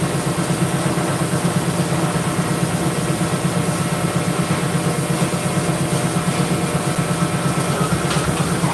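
Hydraulic shop press's power unit, an electric motor driving the pump, running steadily with a fast, even throb while the ram is worked against a leaf-spring bushing.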